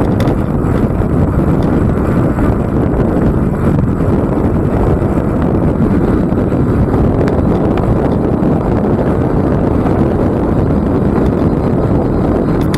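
Wind buffeting the microphone of a camera riding on a moving e-bike: a loud, steady rush of noise, heaviest in the low end.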